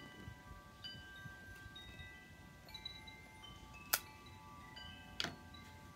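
Wind chimes ringing, several clear high tones overlapping and slowly fading, with two sharp clicks about a second apart near the end.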